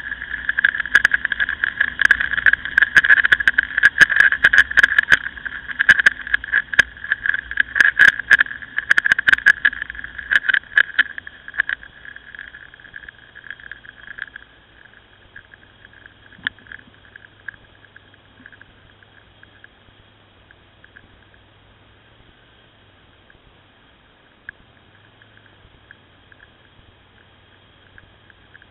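Wind noise on a motorcycle-mounted camera's microphone while riding a Ducati Scrambler, loud and crackling with many sharp clicks. About 12 seconds in it falls away to a faint steady hiss.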